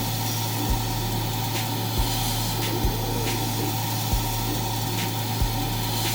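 A CO2 laser cutter running: a steady machine hum with a short, soft low thump about every second and a bit.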